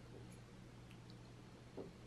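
Near silence: room tone with a faint steady low hum and one brief soft sound near the end.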